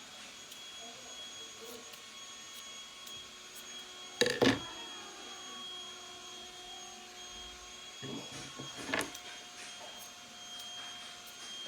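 A faint steady high-pitched whine runs under quiet room sound. Two brief handling noises stand out, one about four seconds in and a longer one about eight seconds in, as of fabric and scissors being handled.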